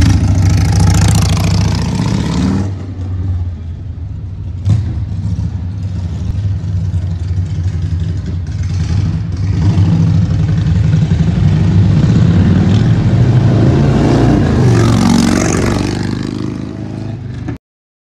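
Harley-Davidson Shovelhead V-twin chopper with custom exhaust pipes being ridden off: loud at first, dropping away after about two and a half seconds, swelling again from about ten seconds in, then cut off abruptly just before the end.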